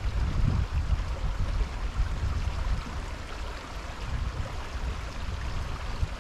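Wind buffeting the microphone in uneven gusts, over a steady rushing hiss of running water from a creek.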